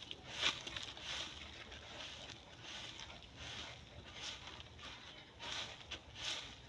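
A cow being milked by hand, the milk squirting into a pail in a rhythm of short hissing squirts, about one or two a second.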